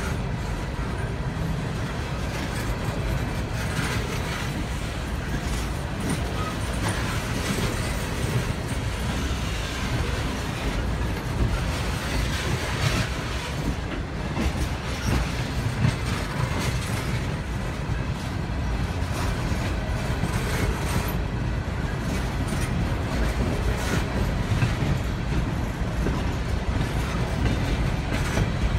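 Empty Norfolk Southern coal hopper cars rolling slowly past, wheels clattering and clicking over the rails in an irregular rhythm over a steady rumble.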